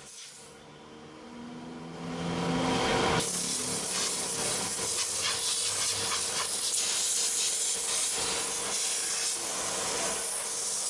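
Steady hiss of a high-pressure spray. It builds about two seconds in over a low machine hum and runs strongly from about three seconds on.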